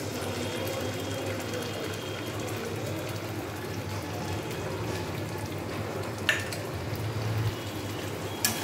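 Spiced oil and masala sizzling steadily in a steel kadai as spoonfuls of white mustard paste go in, with a metal spoon clinking against the pan twice near the end.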